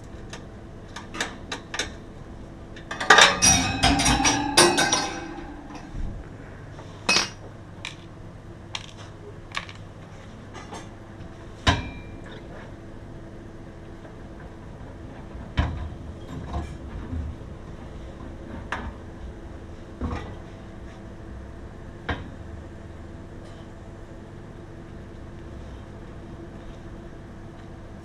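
Scattered knocks and clinks of hard objects being handled, with a burst of clattering about three to five seconds in, over a faint steady hum.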